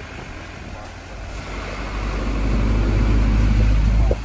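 Engine and road noise of a vehicle being driven: a low rumble that builds from about a third of the way in and drops off abruptly just before the end.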